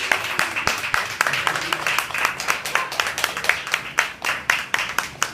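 Audience applauding by hand-clapping at the end of a song, thinning out and getting quieter near the end.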